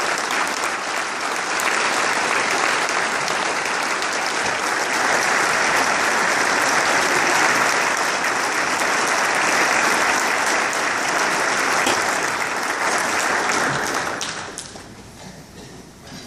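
A large audience applauding steadily, with the clapping dying away about fourteen seconds in.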